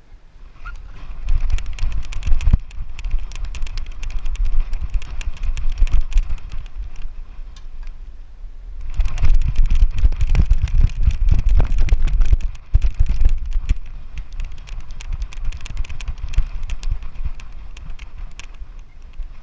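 Rapid clicking and rattling of a GoPro camera jostled in motion, over a heavy low rumble of wind or handling noise. It comes in two bouts, the second starting about nine seconds in, and eases off after about thirteen seconds.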